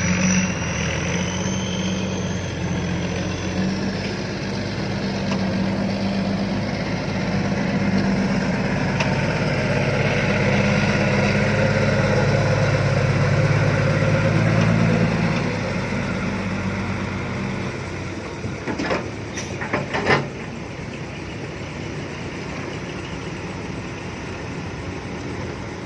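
Six-wheel truck's diesel engine working hard under load as it climbs out of a pit, growing louder over the first half and then fading away as it passes. A few sharp knocks come near the end.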